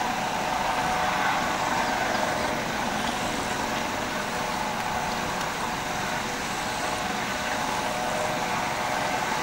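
Helicopter running steadily, a constant engine whine over an even rushing noise.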